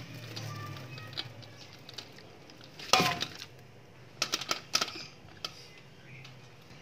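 Steel bowl knocking and clinking against a metal cooking pot as part-boiled rice is tipped out of it into sugar syrup: scattered light clinks, a sharp knock about three seconds in, and a quick run of clinks a little after.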